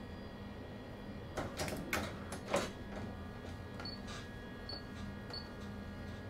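Steady electrical hum inside a train driver's cab, with a short run of sharp clicks and knocks about a second and a half in, then three short faint high beeps in the second half.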